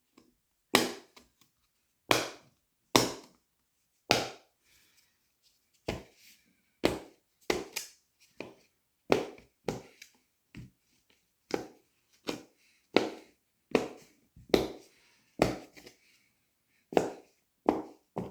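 Silicone bubbles of Fat Brain Toys Dimpl Pops fidget toys being pressed through one at a time, each giving a short sharp pop. There are about twenty pops at an uneven pace, roughly one or two a second.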